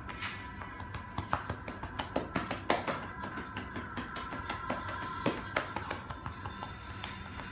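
Light, irregular taps and slaps of hands working on a clothed back, over quiet acoustic guitar music.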